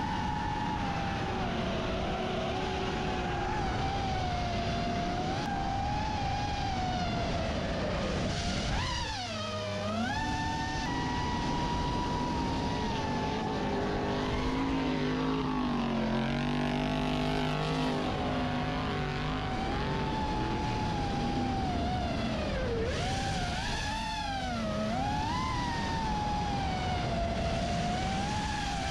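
FPV racing drone's motors whining, the pitch rising and falling with the throttle, with sharp dips where the throttle is cut about a third of the way in and again near the end. A lower engine note joins in the middle.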